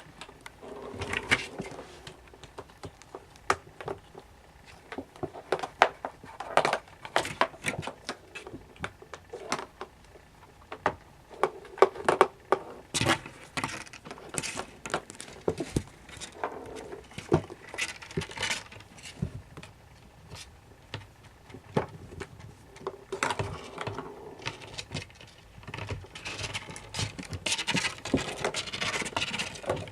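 Kittens playing: irregular small knocks, clicks and scrabbling, with short bursts of rustling.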